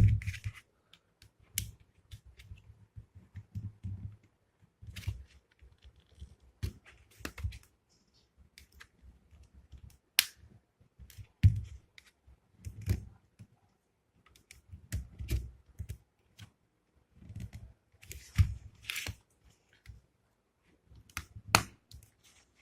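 Plastic casing of a Philips QT4006 hair trimmer being pried open by hand: irregular sharp clicks and snaps of the plastic, with low knocks from handling the body.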